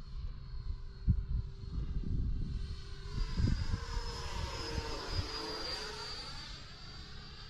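Electric ducted fan of a 64 mm FMS Futura RC jet: a high whine that swells and fades as the jet passes by, loudest about five seconds in. Wind buffets the microphone with low rumbles in the first few seconds.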